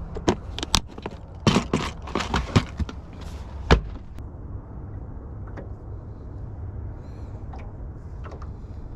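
Clear plastic tackle tray being closed and handled: a quick run of plastic clicks and knocks, then a louder thump just before four seconds in. After that, only a steady low rumble.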